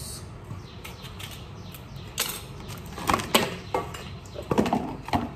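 Kitchen clatter while vegetables are being cut: a series of irregular sharp knocks and taps of utensils being handled, bunched in the second half.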